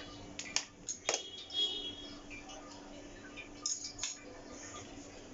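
Light clicks and clinks of kitchen utensils against dishes: a few sharp knocks about half a second to a second in, one followed by a brief metallic ring, and another pair near four seconds, over a faint steady hum.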